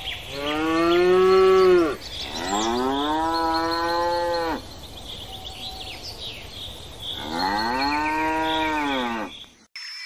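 Three long, drawn-out animal calls, each rising and then falling in pitch, with faint bird or insect chirps behind them.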